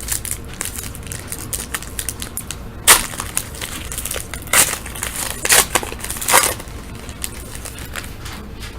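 Crinkling and tearing of a hockey card pack wrapper being opened and handled, a steady crackle with four louder sharp rips or crunches through the middle.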